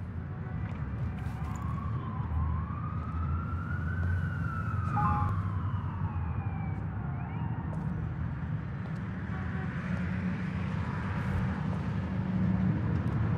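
City traffic ambience: a steady low rumble of traffic with a distant siren giving one slow wail that rises and then falls away.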